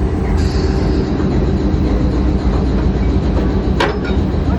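Railway locomotive running steadily with a deep, even rumble. A single sharp knock comes about four seconds in.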